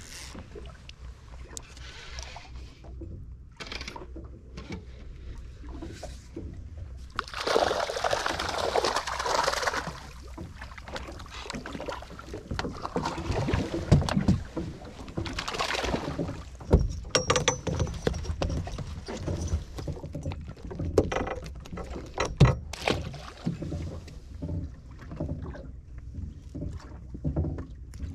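Knocks and clicks of fishing gear being handled against the hull and deck of a small boat, over a low steady rumble. There is a rushing noise for a couple of seconds about eight seconds in.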